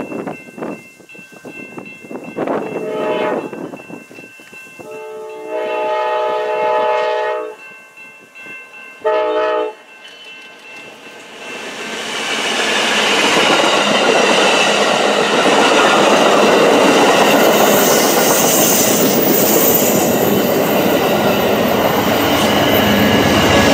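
Amtrak P42DC locomotive's Nathan K5LA air horn sounding three blasts for the grade crossing: a short one, a long one, then a short one. About twelve seconds in, the passenger train goes by at speed, loud with wheel and rail noise and clickety-clack over the joints.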